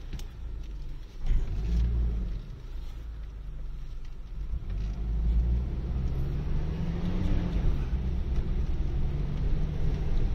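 Car engine and road rumble heard from inside the cabin as the car climbs a steep, narrow road, the engine working under load. A thump comes just over a second in, and the engine note rises around the middle.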